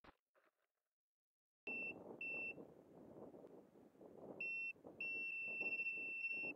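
Piezo beeper of a landed high-power rocket's onboard electronics sounding a high-pitched beep pattern: two short beeps, then a third, then one long tone broken by tiny gaps, over faint wind noise. The beeping starts after about a second and a half of silence.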